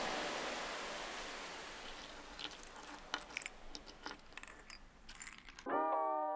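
Water pouring from a glass measuring cup into a jug of concrete mix, trailing off over about two seconds, followed by scattered light clicks and taps of the containers and stir stick. Music starts near the end.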